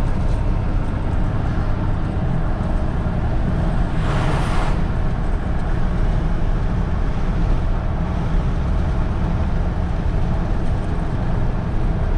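Ram 3500 pickup's Cummins diesel running at highway speed while towing a trailer, a steady low engine drone under tyre and road noise. A brief whoosh comes about four seconds in.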